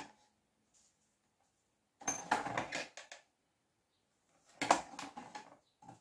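Lid of an Amvox electric sandwich grill being shut with a short run of clicks and knocks about two seconds in, then handled and lifted again with more clicks near the end. The grill is heating a sheet of EVA foam to soften it for moulding.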